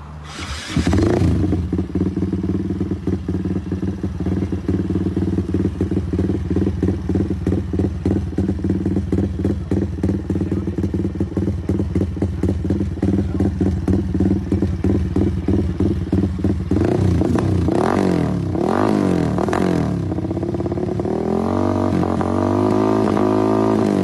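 Yamaha Y15ZR motorcycle's single-cylinder engine idling with an even exhaust beat. It is then revved up and down several times, and held at higher, slowly rising revs near the end.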